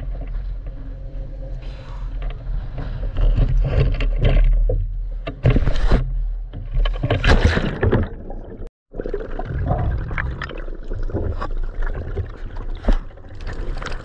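An inflatable boat under way, with a steady low motor rumble and water and wind rushing past. A little over halfway through comes a loud rush of splashing and bubbles as a diver goes into the water. After a sudden cut, muffled underwater bubbling continues.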